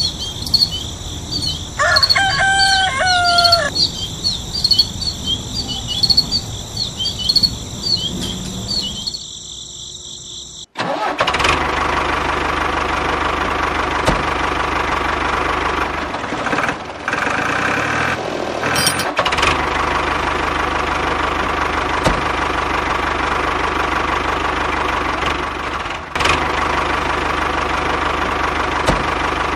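Insects chirping steadily, with a short bird call about two seconds in. About ten seconds in this cuts off suddenly and a tractor engine starts running steadily, dropping away briefly for a few seconds midway before running on.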